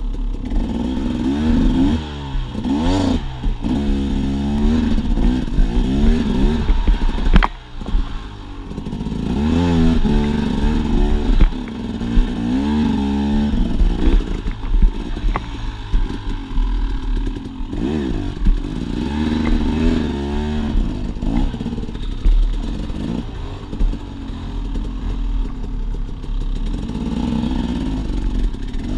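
Dirt bike engine revving up and down in repeated bursts as it picks its way over rock ledges, with a few sharp knocks along the way.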